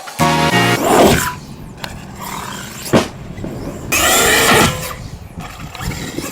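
Traxxas X-Maxx electric RC monster truck driving. Its brushless motor whines up and down in pitch over tyre and ground noise, with a sharp knock about three seconds in and a loud burst of acceleration about four seconds in.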